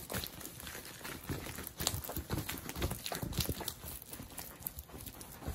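Irregular clacks, taps and rustling as a rolled diamond painting canvas and its packaging are handled on a wooden table.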